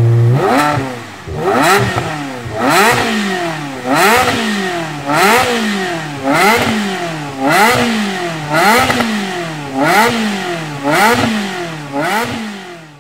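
Engine revved over and over in quick throttle blips, about once a second. Each blip is a fast rise in pitch followed by a slower fall as the revs drop back.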